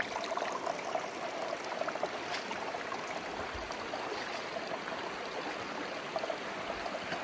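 Shallow mountain river flowing over rounded stones, a steady rush of running water.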